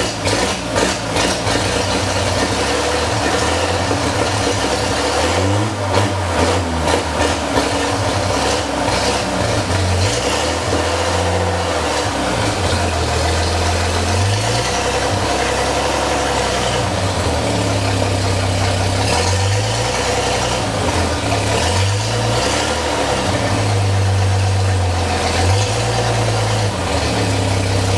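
1932 Chevrolet truck engine running loud under way, its pitch rising and falling again and again as it speeds up and slows, with a steady rattle and clatter over it.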